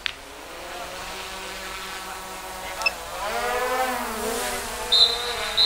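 A passing motor vehicle's engine, rising in pitch and loudness about three seconds in and then easing off. Near the end, two short, shrill referee's whistle blasts signal the second-half kick-off.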